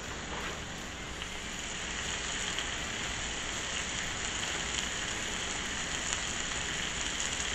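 Bacon-wrapped pork tenderloin medallions and butter-coated cauliflower steaks sizzling steadily on a hot flat-top griddle, with light crackles of spattering fat.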